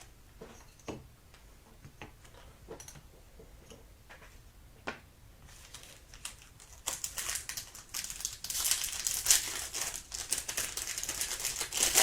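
Foil trading-card pack wrapper crinkling as it is torn open and handled, starting about halfway through and growing louder toward the end, after a few light taps and clicks.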